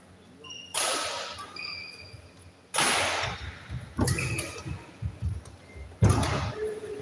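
Badminton rally in an echoing sports hall: four sharp racket strikes on the shuttlecock, one to two seconds apart, each ringing on in the hall. Short squeaks of shoes on the court come between them.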